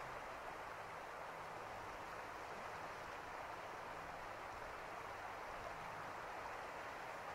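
Steady rush of shallow river water flowing, an even hiss with no change.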